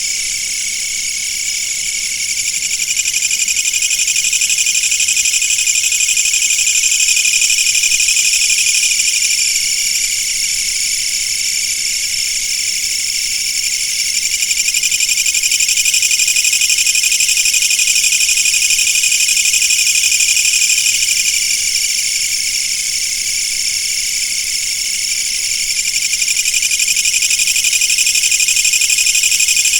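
A chorus of insects keeps up a dense, high-pitched buzzing trill without a break. It swells and eases slowly, louder around 3 to 9 s and 15 to 21 s and dipping near 11 and 24 s.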